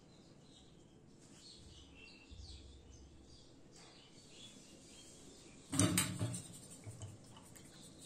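A fine round brush scratching and dabbing faintly on watercolour paper, then a louder brief knock and rustle about six seconds in.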